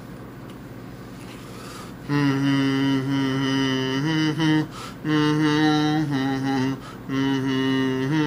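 Faint steady room hum. From about two seconds in, a low male voice hums long held notes, each a second or two, stepping slightly in pitch with brief breaks between them.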